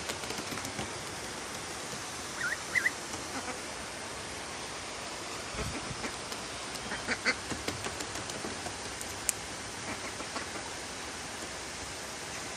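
White domestic ducks quacking in short calls: a few soft ones about two and a half seconds in and a louder cluster about seven seconds in, over a steady background hiss.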